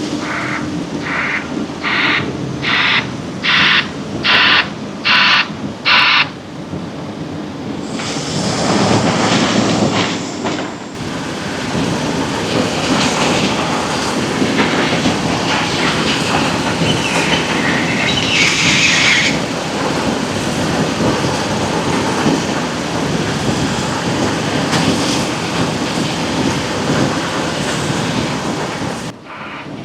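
Heavy quarry machinery at work: a steady rumbling din of diesel plant and stone being crushed and loaded. In the first six seconds about eight short pulses of a reversing alarm sound, evenly spaced less than a second apart.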